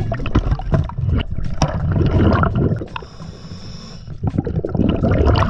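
A scuba diver breathing through a regulator, heard underwater: loud rushing, bubbling exhalations, broken about three seconds in by a quieter hissing breath in, then another rush of bubbles.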